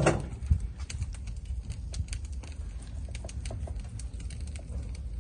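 Light scattered ticks and patter of hands salting whole raw fish on an enamel plate, with a sharp knock about half a second in. A steady low rumble runs underneath.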